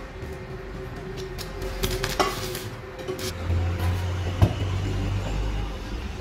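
Metal workshop clatter: a few light clinks, then one heavy knock about four and a half seconds in as the trolley's steel axle beam is shifted on the concrete floor, over a low hum.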